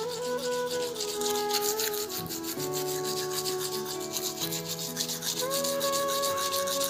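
Manual toothbrush scrubbing teeth close to the microphone: quick, even back-and-forth scratching strokes. Background music with long held notes plays underneath.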